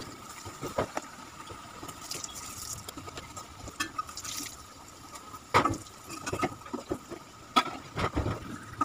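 Breaded paneer cutlets deep-frying in hot oil in an aluminium kadai, a steady sizzle, with several sharp metallic clicks as a slotted spoon knocks against the pan, the loudest about halfway through and again near the end.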